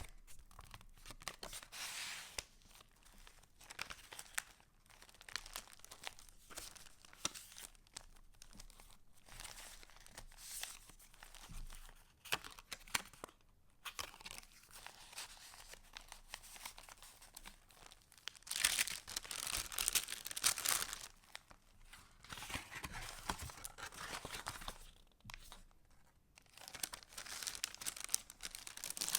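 Paper pages of a handmade junk journal rustling and crinkling as they are handled and turned, in many short crackly strokes, with a louder stretch of rustling about two-thirds of the way through.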